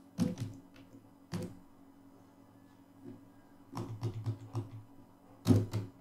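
Computer keyboard typing: two separate keystrokes, then a quick run of keys about four seconds in, and a louder keystroke near the end.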